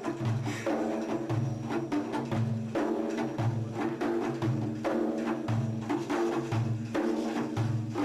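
Frame drums (daff) playing a steady rhythm: deep booming beats about once a second, with quick sharp slaps between them, accompanying Sufi madih praise singing.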